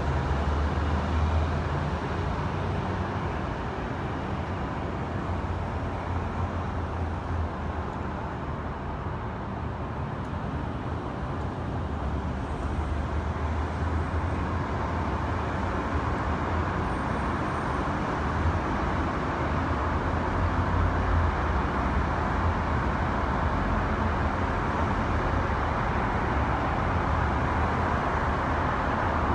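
Steady city traffic noise: a low rumble with an even wash of road noise, somewhat louder in the second half.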